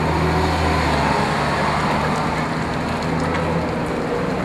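Sunbeam S7 three-axle trolleybus driving past close by: a steady low electric motor hum over tyre and road noise, the hum stopping near the end.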